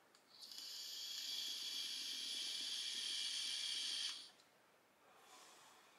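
Air hissing in through the half-closed airflow holes of a Univapo Unix MTL e-cigarette atomizer during one draw of about four seconds, relatively loud for a mouth-to-lung device, cutting off sharply at the end.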